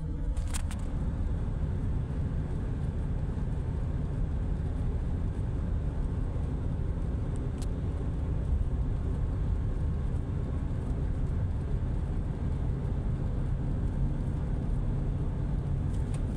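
A car driving at highway speed: a steady low rumble of engine and tyre road noise.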